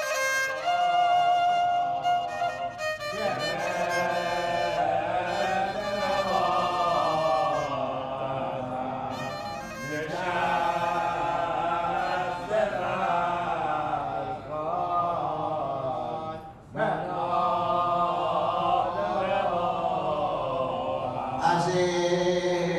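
Slow, mournful violin melody with a wavering, sliding line, briefly dropping out about three-quarters of the way through. Near the end a man's chanted mourning lament (noheh) takes over into a microphone.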